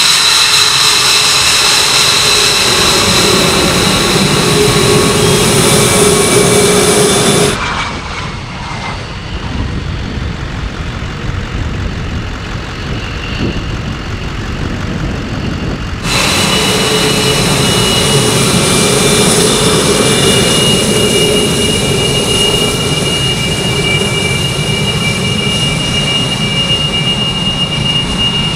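Twin Pratt & Whitney F119 turbofans of an F-22 Raptor running at taxi power: a steady high whine over a rumble. A third of the way in the sound cuts abruptly to a quieter, duller jet roar from a Raptor taking off farther away, then about halfway through cuts back to the close taxiing whine.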